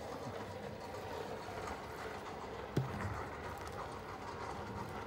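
A steady low rumble, with one sharp knock a little under three seconds in.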